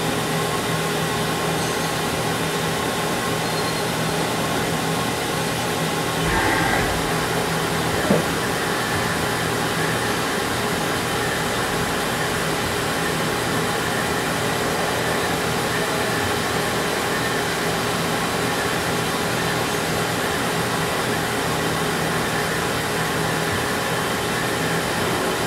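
CNC milling machine cutting 6061 aluminum with an end mill: a steady machine whir with a constant hum under it. A brief swell comes about six seconds in, and a single sharp click about eight seconds in.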